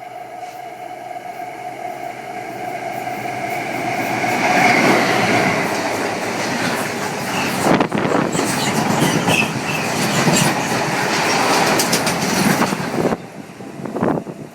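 A train approaching and passing close by, a steady tone drowned as it draws near, then wheels clicking rapidly over rail joints with some squeal. The sound cuts off suddenly near the end.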